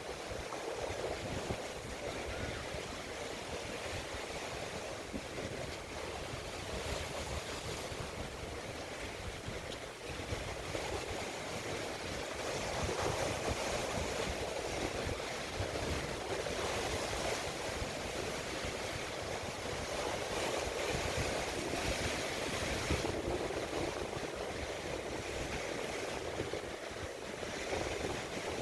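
Steady rushing of water and wind, swelling and easing slightly, like waves washing past.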